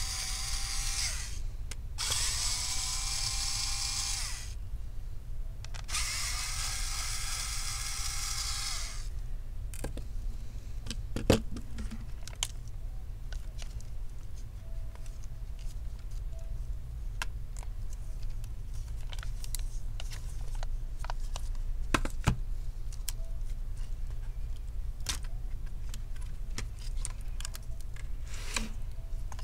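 Electric screwdriver whirring in three short runs of one to three seconds each as it backs out the battery screws. After that come scattered light clicks and a couple of sharper knocks from hands working on the laptop's cables and parts.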